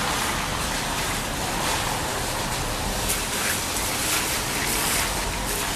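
Steady rushing noise of wind on the microphone, with a low rumble underneath.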